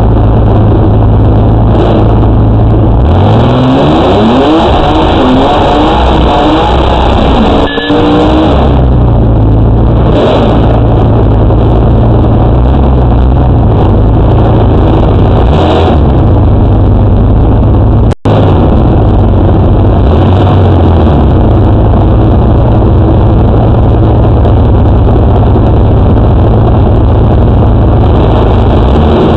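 Twin-turbo V6 drag car engine, heard from inside the car and very loud, near distortion: revved hard with the pitch climbing again and again for about five seconds, as in a burnout, then running at a steady idle with occasional short throttle blips. The sound drops out briefly twice.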